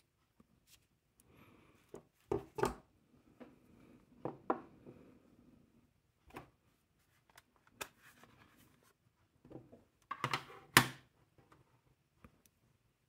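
Handling noise on a wooden tabletop: an agate snuff bottle, a steel digital caliper and a plastic pocket-scale case being picked up and set down, heard as scattered small clicks and knocks with faint rustling between them. The knocks come in clusters, the loudest a couple of seconds before the end.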